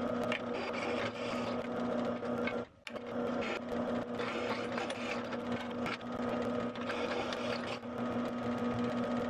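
Drill press motor running with a steady hum while a twist bit cuts holes through a steel knife blank's handle, the cutting adding an uneven scraping over the hum. The sound drops out briefly about two and a half seconds in, then carries on.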